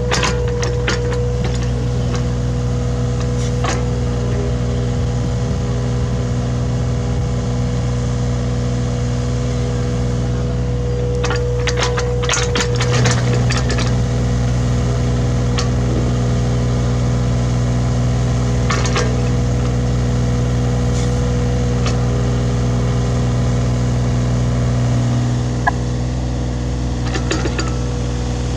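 Hitachi Zaxis 33U mini excavator's diesel engine running steadily under digging load, with scattered knocks and scrapes from the bucket working the soil, a cluster of them about twelve seconds in.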